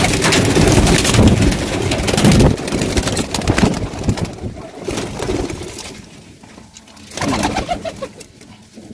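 Pigeons' wings clattering as several birds flap and take off inside a wooden loft, with pigeons cooing. The flapping is loudest for the first couple of seconds, dies down, and comes again briefly near the end.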